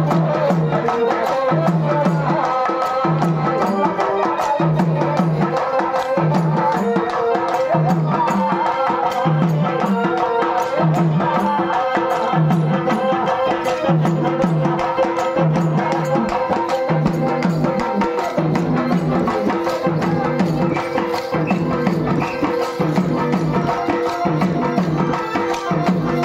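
Live Telugu Pandari bhajana folk music: a male singer's voice over a low drum beat about once a second and fast clicking percussion, played without a break.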